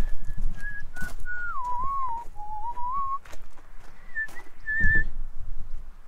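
A man whistling a slow, wandering tune: phrases that dip in pitch in the middle and climb back up, ending about five seconds in. Scattered footsteps crunch on gravel underneath.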